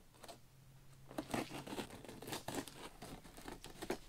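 A blade slitting packing tape and cardboard on a shipping box, with short, irregular scratching and crinkling strokes starting about a second in.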